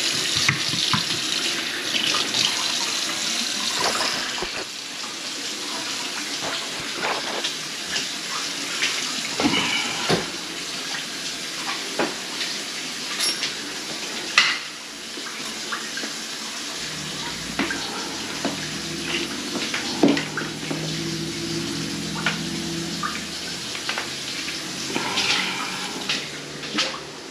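Water running steadily from a kitchen faucet, with scattered clicks and knocks of handling and footsteps. A low hum comes in for several seconds past the middle, and the running water stops near the end.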